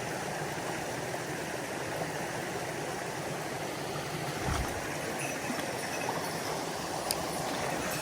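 Mountain stream water rushing steadily over rocks, with a low thud about four and a half seconds in and a sharp click near the end.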